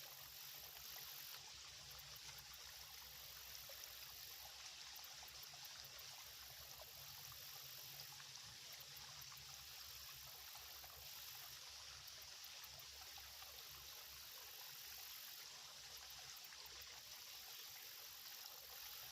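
Small, shallow creek trickling faintly and steadily.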